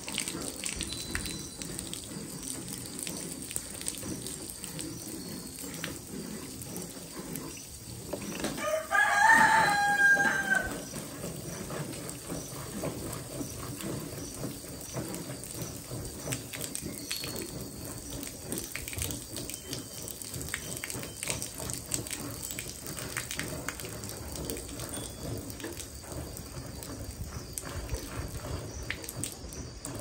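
Milk squirting in short rhythmic streams into a steel pail as a cow is milked by hand. Once, about nine seconds in, a rooster crows loudly, rising at the start and then held for about two seconds.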